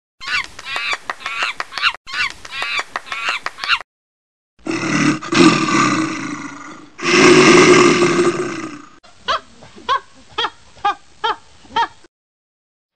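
Dubbed-in animal-like sound effects. First, about four seconds of rapid, high-pitched cackling calls in two runs. Then a loud, rough, low-pitched sound in two parts lasting about four seconds, and finally about seven short calls evenly spaced about half a second apart.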